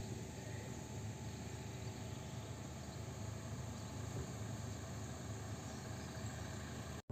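Steady outdoor background noise with a faint low hum, with no distinct events, cutting off abruptly at the very end.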